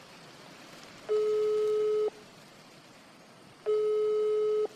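Telephone ringing tone heard on the caller's end: a steady beep of about a second, sounding twice with a pause between, as the call rings out.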